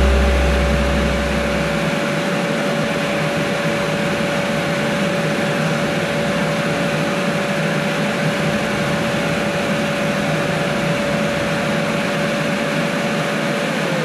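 Vacuum cleaner running steadily: a constant rush of air with a single steady motor whine. Right at the very end the whine starts to fall as the motor winds down.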